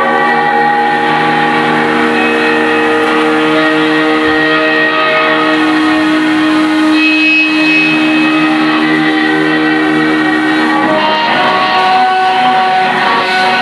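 Electric guitars through amplifiers playing long, sustained droning notes in a live math rock set, one guitar with a bow laid against its strings. The held notes shift around five seconds in and again near eleven seconds.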